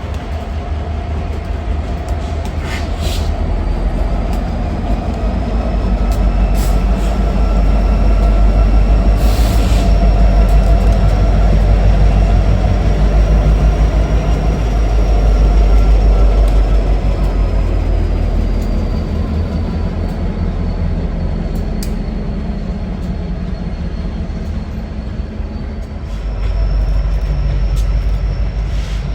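Train rolling past with a heavy diesel locomotive rumble that swells to its loudest in the middle. Thin, drawn-out wheel squeals sound over it, drifting slowly in pitch.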